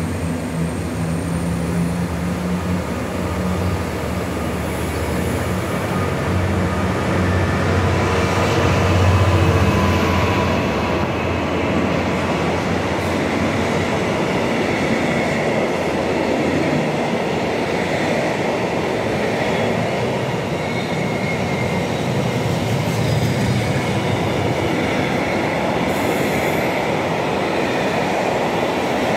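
A Class 66 diesel locomotive's two-stroke V12 engine goes by, loudest about nine seconds in. After it comes the steady rolling rumble and clatter of a long rake of container flat wagons, with some thin wheel squeal.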